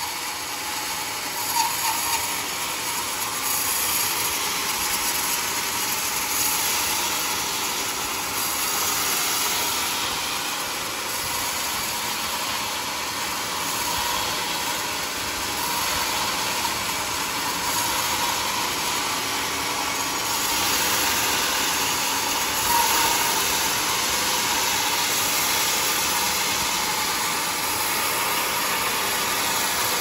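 Homemade band sawmill's blade cutting lengthwise through a large teak stump, a steady rushing noise that holds without a break.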